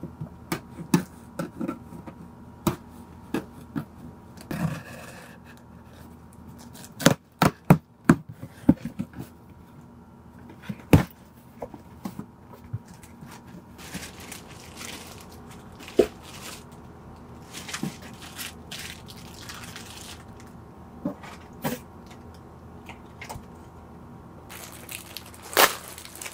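Cardboard box being unpacked by hand: scattered sharp knocks, taps and scrapes of cardboard and items being handled. Plastic wrapping rustles near the end.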